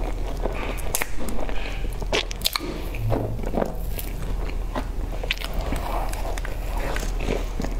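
A person biting into and chewing a crumb-topped cream puff: many small, sharp crunches and crackles from the crisp crumb shell, mixed with wet chewing.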